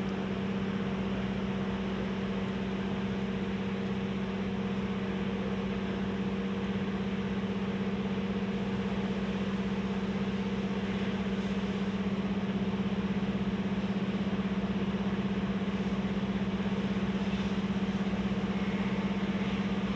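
A steady machine hum with a strong low tone and fainter higher tones, unchanging throughout.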